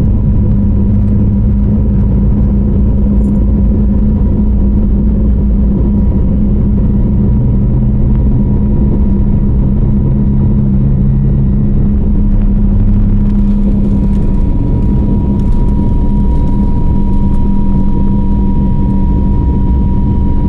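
Steady low rumble of an Airbus A321neo's jet engines and airframe heard inside the passenger cabin, with a light rattle joining in about two-thirds of the way through.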